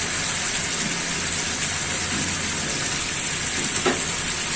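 Thick spiced masala gravy sizzling and bubbling steadily in a black karahi as pieces of fried fish are laid into it, with one light knock near the end.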